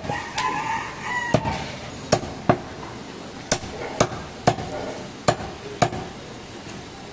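Heavy butcher's chopping knife striking through mutton onto a wooden stump block: about ten sharp chops at uneven intervals, most less than a second apart.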